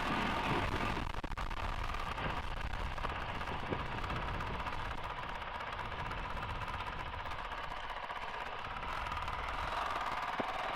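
Honda CRF450RL's single-cylinder four-stroke engine running steadily at an easy cruise.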